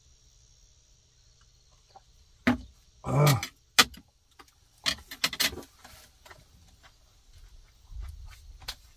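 A person eating and drinking: sharp clicks and crunches of cup, chopsticks and chewing fresh greens, with a short voiced exhale about three seconds in. A faint steady high hiss sits underneath.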